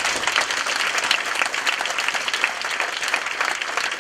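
Audience applauding, many people clapping at once, steady throughout.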